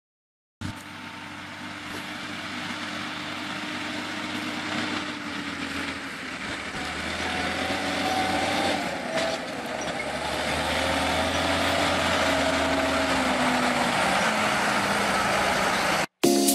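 John Deere 6170R tractor's diesel engine running under load as it hauls a loaded sugar-beet trailer across a field, growing steadily louder as it approaches. The sound starts about half a second in and cuts off suddenly near the end.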